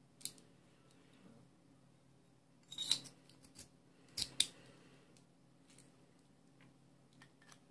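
Parts of a custom sonic screwdriver prop handled and fitted together: scattered small clicks and scrapes of metal and plastic pieces, the loudest a short scrape about three seconds in and two sharp clicks just after four seconds.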